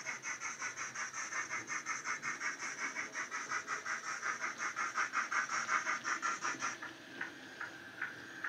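Digital (DCC) steam sound from a model Sonic Models A5 tank locomotive, a LokSound 5 decoder with the Wheeltappers sound file playing through a small tablet speaker: rapid exhaust chuffs at about five a second. The chuffs stop about seven seconds in, leaving a faint hiss and scattered clicks.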